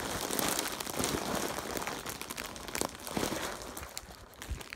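Plastic packaging crinkling and crackling as it is squeezed and pulled at in a struggle to open it, thinning out near the end.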